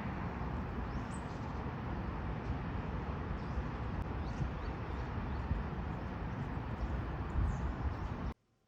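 Outdoor ambience: a steady low rumble with scattered faint, short bird chirps, cutting off suddenly near the end.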